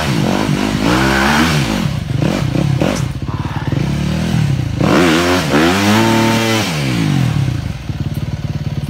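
Dirt bike engine revving hard in repeated throttle bursts under load as it claws up a steep rocky climb, the pitch rising and falling several times. The longest, highest rev comes about two thirds in, and the engine then drops to a steadier lower note near the end.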